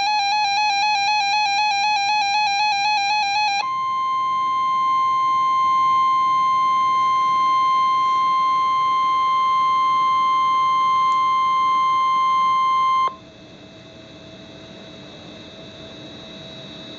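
NOAA Weather Radio alert: a rapidly warbling electronic alarm for about three and a half seconds, then the steady 1050 Hz weather-radio warning tone. The tone cuts off suddenly about thirteen seconds in, leaving faint radio hiss, as a severe thunderstorm warning is about to be read.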